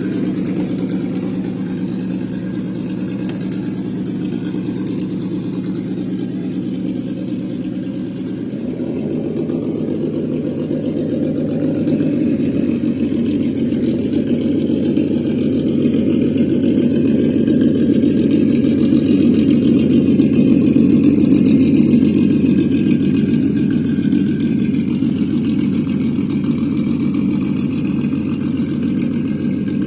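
Engine-sound simulator (ESS Dual sound module) on a Traxxas TRX-4 RC crawler, playing a synthetic engine note through its speaker as the truck runs. The note changes pitch about eight seconds in, grows louder toward the middle as the throttle is opened, then eases back.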